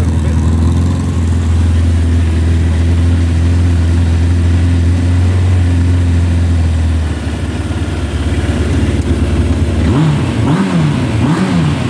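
1999 Suzuki GSX-R1100's inline-four engine idling steadily through an aftermarket end can, running nicely. Near the end the throttle is blipped a few times in quick succession, the revs rising and falling with each blip.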